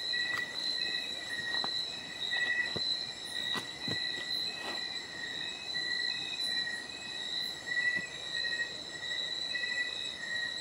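Night insects chirping in a steady chorus of high, pulsing trills, with a few faint clicks.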